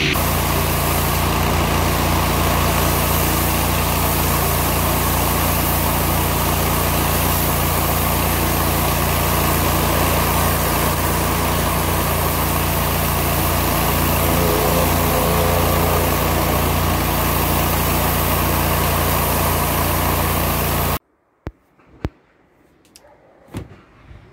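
An engine running steadily at an even speed, with a low hum. It stops abruptly about 21 seconds in, leaving only a few faint clicks.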